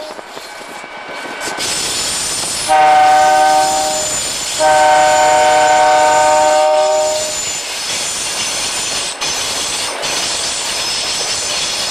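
Air horn of an SD45-2 diesel freight locomotive sounding a short blast about three seconds in, then a longer one, each a chord of several notes. Between and after the blasts there is the steady rolling noise of the moving train, with a thin high squeal from the wheels.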